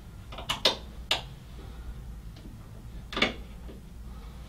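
Metal clicks and scrapes of a knife's back, used as a screwdriver, working a PC case's tightly fastened thumb screws: a few sharp clicks about half a second to a second in, then a longer scrape about three seconds in.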